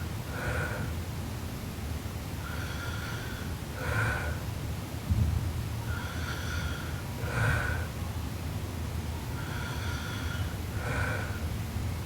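A sleeping girl snoring. Each breath gives a high, whistling snore followed by a shorter, harsher snort, repeating about every three and a half seconds over a steady low rumble. There is a single low thump about five seconds in.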